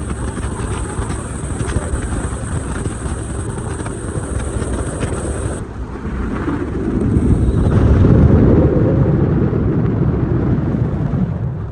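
A boat's motor running underway, with heavy wind rumble on the microphone; the low rumble swells for a few seconds past the middle.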